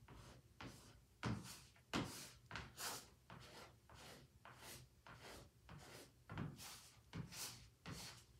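A sponge scrubbing and dabbing wet paint across a stretched canvas in quick, irregular strokes, about two a second, with the firmest strokes between one and three seconds in.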